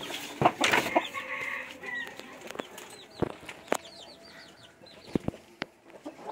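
Chickens clucking in a bamboo coop, with a quick run of short, high, falling peeps in the middle and several sharp knocks and clicks scattered throughout.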